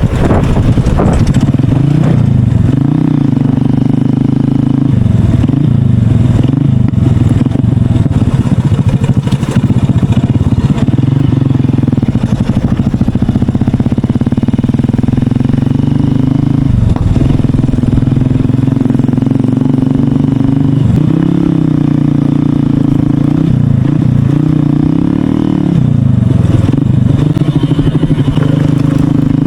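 Motorcycle with a loud aftermarket exhaust running steadily under way. Its engine note dips and climbs again several times, as the throttle is eased and reopened.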